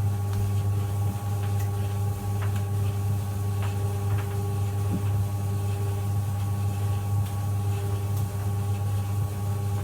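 White Knight CL372WV compact vented tumble dryer running, its motor and drum giving a steady low hum with a few faint clicks.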